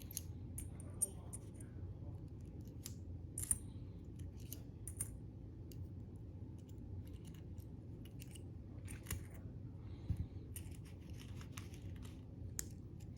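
Thin steel lamination plates of a laminated warded padlock being slid off one by one, giving scattered light metallic clicks and clinks at an irregular pace.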